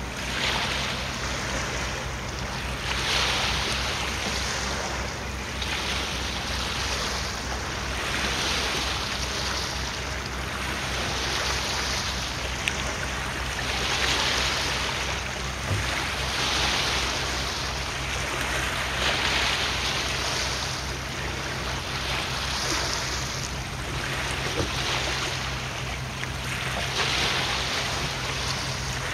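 Steady low hum of a ferry's engines under the wash of water, which swells and fades every couple of seconds like waves breaking.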